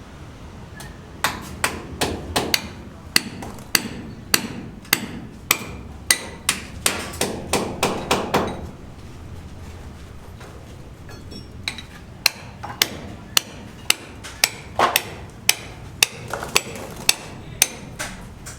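Hammer blows struck at about two a second, in two runs with a pause of about three seconds between them.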